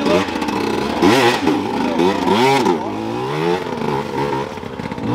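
Dirt bike engine revving up and down in repeated bursts as the bike is pushed up a steep, slippery climb.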